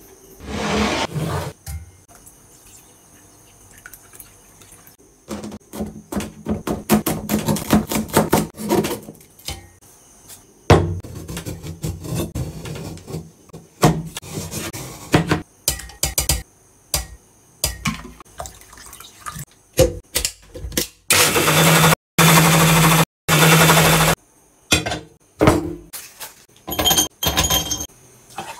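Close-up food-preparation sounds in a string of short takes: a silicone spatula stirring and scraping a thick, sticky mixture in a ceramic bowl, and a knife cutting fruit on a plastic chopping board with many short knocks. A loud steady noise lasting about three seconds falls a little past the middle.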